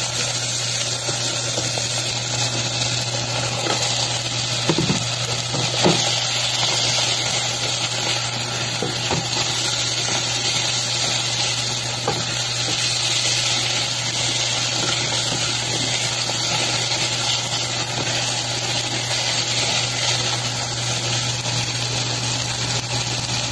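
Onion, garlic, tomato and fried tofu sizzling in oil in a metal pan as they are stir-fried, with a few spatula scrapes and knocks against the pan. A steady low hum runs underneath.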